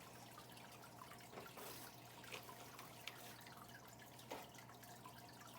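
Faint water from a garden hose running into a fish tank, a steady trickle with a few drips.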